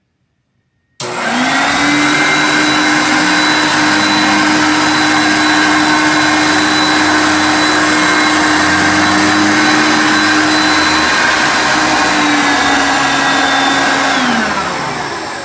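Hoover Concept One upright vacuum cleaner switched on about a second in and running steadily with a high motor whine. Near the end it is switched off and its motor winds down, the whine falling in pitch as it fades.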